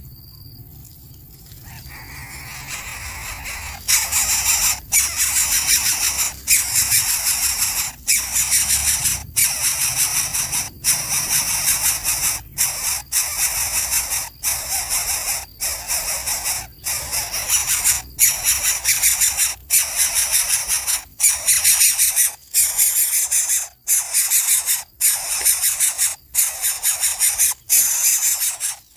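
A brood of hungry nestlings begging for food in the nest: a loud, high, raspy chorus of calls that swells up over the first few seconds, then runs on broken by brief pauses about once a second.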